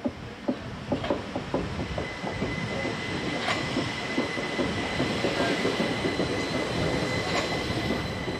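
Southern Class 377 Electrostar electric multiple unit passing. Its wheels click over rail joints several times in the first couple of seconds, then a steady high whine sets in over the running noise as the carriages go by.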